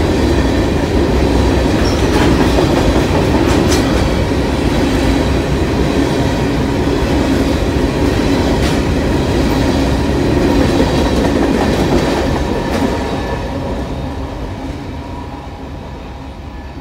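Covered hopper cars of a freight grain train rolling past, steel wheels on rail making a steady heavy rumble with a few sharp clicks. About twelve seconds in, the end of the train passes and the noise fades steadily as it recedes.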